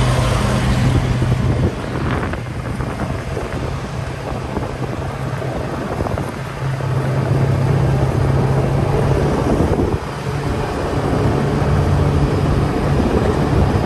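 Engine running steadily with a low hum that fades briefly twice and comes back, with wind noise on the microphone.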